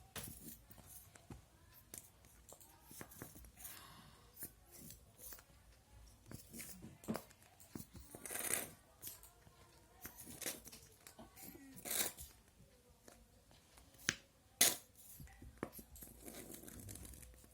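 Plastic glue bottle being squeezed and handled, with scattered clicks and short spurts of air and glue from the nozzle as the bottle runs nearly empty.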